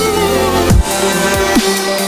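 Chillstep (melodic dubstep) electronic music: sustained synth tones and a gliding melody over a deep, sweeping kick, which hits twice.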